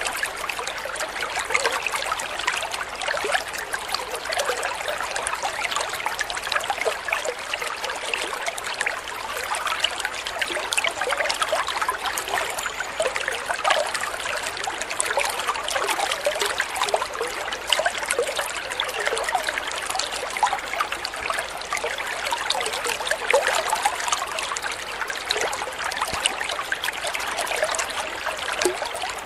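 Steady trickling, babbling water, as of a small stream, running evenly without a break.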